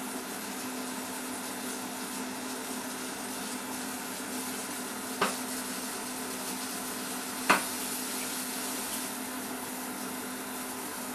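EveryCook automated cooking machine running a steady hum and hiss while it heats its sealed pot and the pressure builds. Two sharp clicks come about five and seven and a half seconds in.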